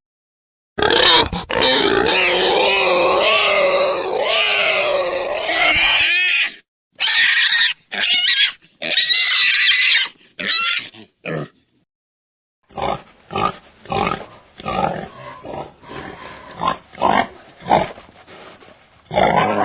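Wild boar squealing loudly for several seconds, then a few shorter squeals. After a brief pause comes a run of repeated grunts, about two a second.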